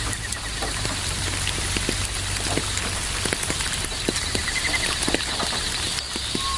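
Steady rain falling, with individual drops ticking close by, and faint crickets chirping high in the background. A short trill about four and a half seconds in.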